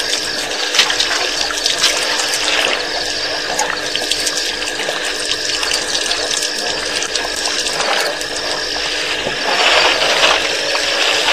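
Elephants drinking at the edge of a waterhole, with water sloshing and trickling. Behind it runs a steady hiss and hum, with a faint high chirp repeating about once a second.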